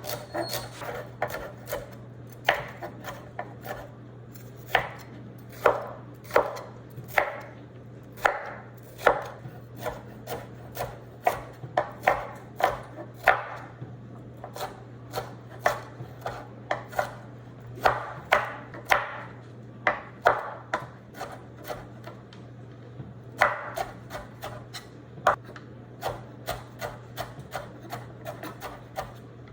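Kitchen knife chopping celery on a cutting board: a long run of sharp, uneven chops, about one or two a second, with a brief pause a little past the middle. A steady low hum runs underneath.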